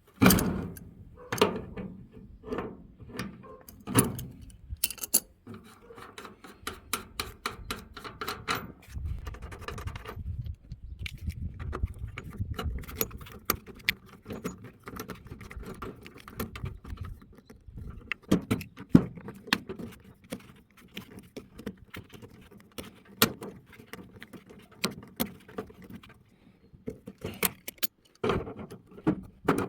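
Irregular metallic clinks, knocks and rattles of tools and hardware being handled during hand work, some sharp, spread through the whole stretch.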